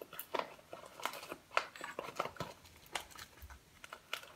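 Paper bag being handled and worked open: irregular crinkles, rustles and small clicks.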